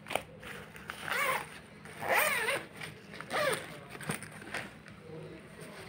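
Zipper on a Safari soft travel bag's inner netted compartment being run open and shut, three quick zip strokes about a second apart in the first four seconds, with fabric handling noise between them.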